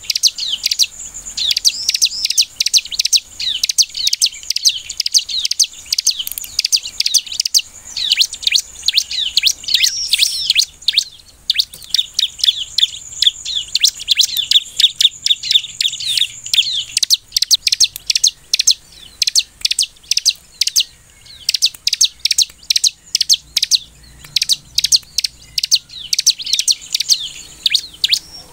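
Bar-winged prinia (ciblek) singing: fast runs of high, rapid chirping notes with brief pauses between runs.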